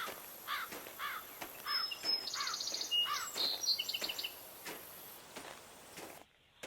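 Countryside birdsong: a chirp repeated about twice a second, joined by a higher trilling song about two seconds in, over a faint outdoor hiss that cuts off suddenly near the end.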